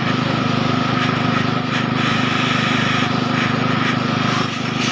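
Air compressor running steadily: a low, even hum with a fast pulse.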